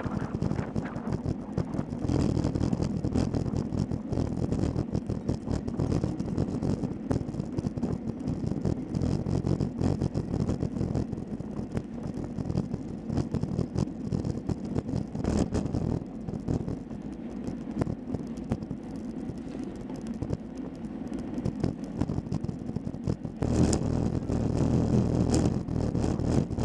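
Wind buffeting the microphone of a camera mounted on a road bike, over the hum of road-bike tyres rolling on asphalt while riding in a group. It gets louder about three-quarters of the way through.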